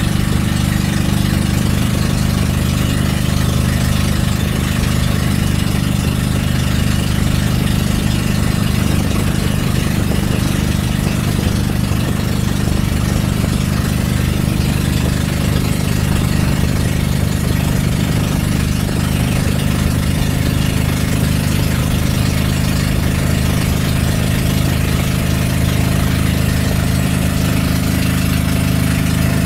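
Bangka outrigger boat's engine running steadily under way, a constant low drone with an even hiss over it.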